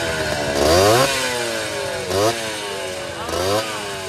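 Two-stroke Jawa-Yezdi motorcycle engine revved in three short blips; its pitch rises sharply with each blip and sinks slowly back between them.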